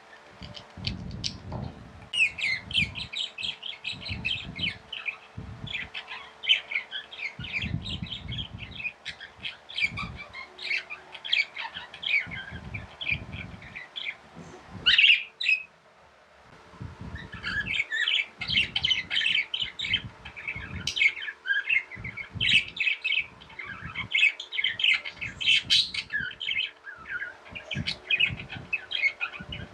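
Pet budgerigars chirping and chattering in a dense, rapid stream of high chirps with occasional squawks, one loud call about halfway through followed by a brief lull. Low thuds recur underneath, and a faint steady hum runs throughout.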